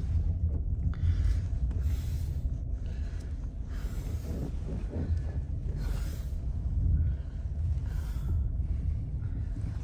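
Steady low rumble of a full-size SUV's engine and tyres heard inside the cabin while it creeps through deep snow, with a soft swish recurring about every two seconds.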